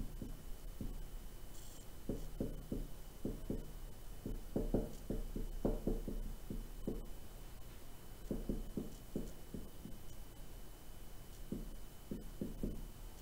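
Marker writing on a whiteboard: bursts of short, quick strokes with brief pauses between words, over a faint steady electrical hum.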